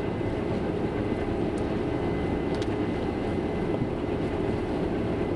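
Combine harvester running steadily, heard from inside its cab: an even, low machine drone with a faint thin whine above it.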